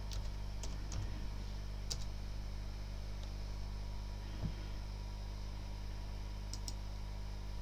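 A few faint computer keyboard keystrokes and mouse clicks, scattered singly with two close together near the end, over a steady low hum.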